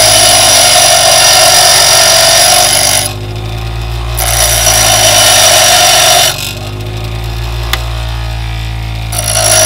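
Bench grinder running as a twist drill bit is pressed against its coarse grinding wheel, a loud grinding hiss with a steady high whine, to rough the bit's point into a brad-point (pilot) tip for wood. The bit is pressed on three times, about a second in, after four seconds and near the end, with just the motor's low hum in the pauses between.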